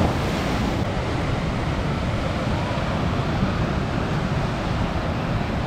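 Sea surf washing on a beach, mixed with wind buffeting the microphone in a steady low rumble. It cuts off suddenly at the end.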